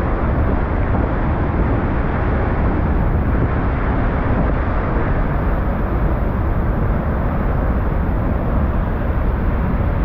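Athirappilly Falls, a large waterfall in heavy flow: the loud, steady rush of falling water, strongest in the low end and unbroken throughout.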